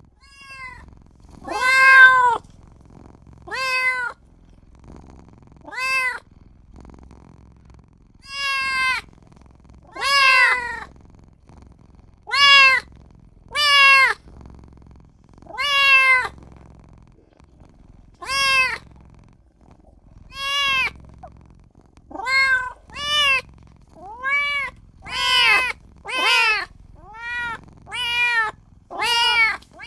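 Young kitten meowing over and over: short, high mews that rise and fall in pitch, about one every two seconds at first and about one a second in the last third. They are the cries of a small kitten calling for its mother or owner.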